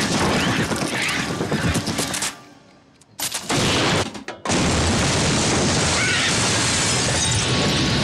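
A loud, rushing blast of fire and explosion sound effects, mixed with dramatic music. It cuts out abruptly twice, once for about a second and again briefly, then runs on steadily.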